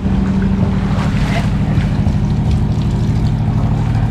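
Small engine running steadily at an even speed.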